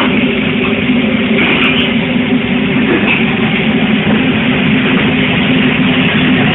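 Background music with a steady, dense roar of noise underneath.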